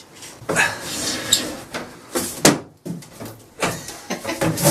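A battered wooden drawer being worked out of an old piece of furniture: wood scraping and knocking in a run of irregular clunks.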